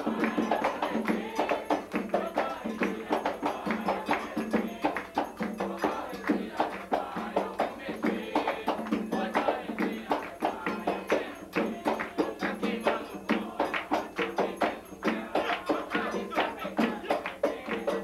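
Drums of an Afro-Brazilian religious ceremony played in a fast, steady rhythm with sharp hand-clapping, and people singing along. The recording is thin, with almost no bass.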